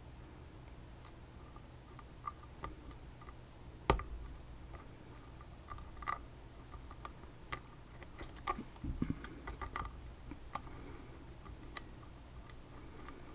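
Lock pick working inside the keyway of a Chinese-made BiLock clone lock: irregular small metallic clicks and ticks, one sharper click about four seconds in and a quick run of clicks later on.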